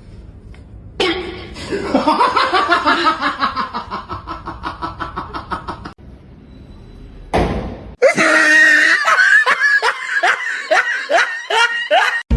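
Laughter in two stretches of rapid, repeated pulses, each a few seconds long, with a short gap between them.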